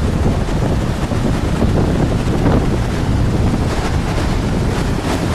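Wind buffeting the microphone over the steady rumble of heavy ocean surf.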